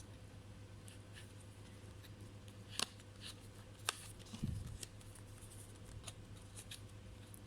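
Light handling noise of small parts being worked on: scattered faint ticks, with two sharper clicks about three and four seconds in and a soft thud just after, over a steady low electrical hum.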